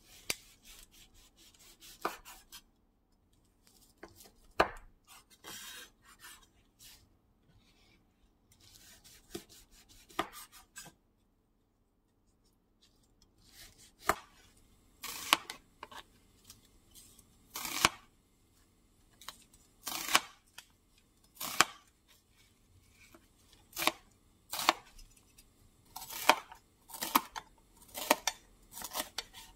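Kitchen knife cutting sheets of fried fish cake on a wooden cutting board, each stroke a sharp knock of the blade on the board. The cuts come sparse and irregular at first, then after a short pause settle into a louder, steadier rhythm of about one a second. Near the end the knife is slicing yellow bell pepper into strips on a plastic cutting board.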